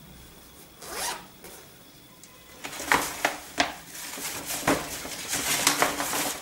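Zipper on a fabric toiletry bag being pulled: one quick zip about a second in, then from a little under three seconds a longer run of rasping zip strokes and clicks as the bag is closed and handled.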